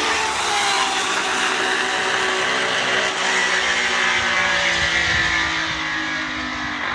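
Honda RA301's 3-litre V12 Formula 1 engine running at high revs: a loud note of many tones together that dips in pitch about a second in, then holds steady.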